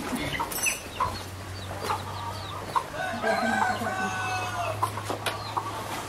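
Chickens in a farmyard: hens clucking, then a rooster crowing once, a long call of about two and a half seconds starting about three seconds in.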